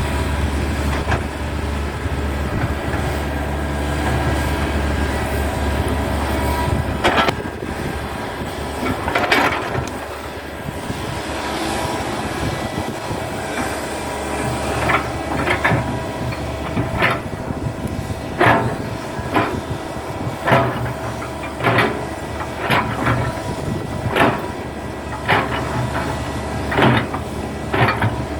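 Excavator's diesel engine running steadily under load, joined about halfway through by a series of sharp metallic clanks roughly once a second.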